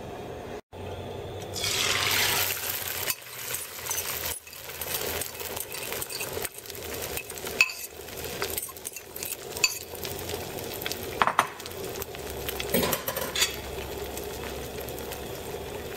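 Beaten eggs hitting hot oil in a wok with a burst of sizzling about a second and a half in. They keep frying with a steady sizzle while a metal spatula scrapes and clinks against the pan.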